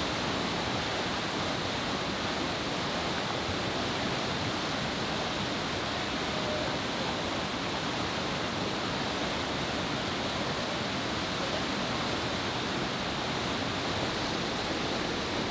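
Fast-flowing river rushing steadily through white-water rapids, a continuous even wash of water noise.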